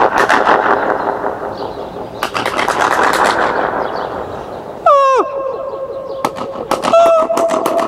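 Sharp sounds set off a rapid, rattling flutter echo under a stone arch bridge, each one breaking into a fast train of repeats. About five seconds in, a voice calls out a note that swoops down and is then held, ringing with the same fluttering echo.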